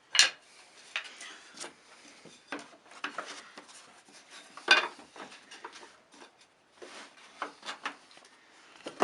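Irregular clatter and knocks of wooden frame blanks being handled and set down, with two sharper knocks, one just after the start and one near the middle.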